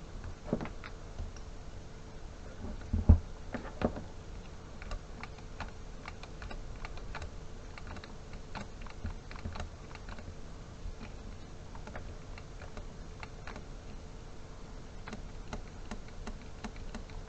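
Small irregular clicks and taps of metal carburetor parts and tools being handled on a workbench, with a louder knock about three seconds in, over a faint steady hum.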